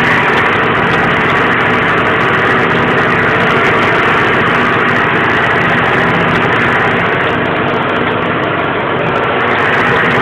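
Tractor engine running steadily as it pulls a disc plough.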